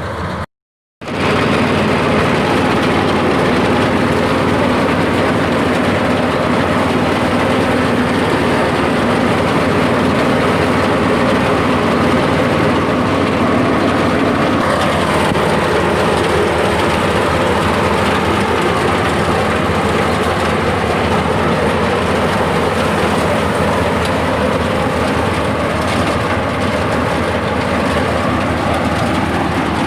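An engine runs steadily and loudly, broken only by a brief total dropout about half a second in.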